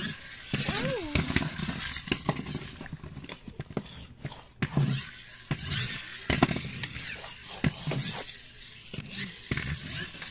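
Plastic toy monster trucks being handled and pushed on a hard floor: irregular clicks, knocks and scraping, with brief bits of voice.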